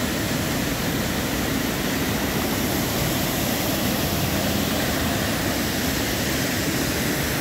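Tall waterfall falling onto rocks: a steady, even rush of water noise.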